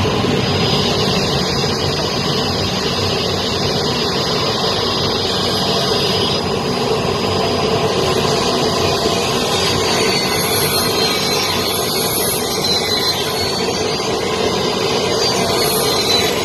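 Large circular wood saw running with a steady high whine while wooden boards are fed through it by hand. From about ten seconds in, the whine wavers up and down in pitch.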